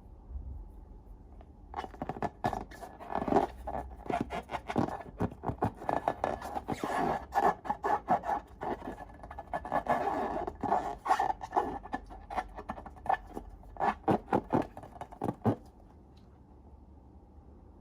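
Close-up handling sounds from slime making: a quick, uneven run of clicks, scrapes and crackles that starts about two seconds in and stops a couple of seconds before the end.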